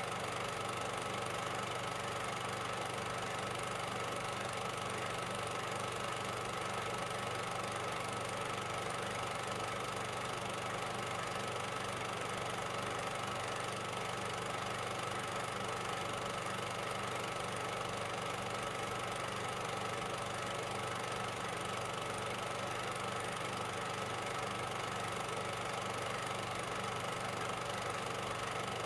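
A steady mechanical drone with a low hum and a higher whine, unchanging throughout, with no gunshots or blasts standing out.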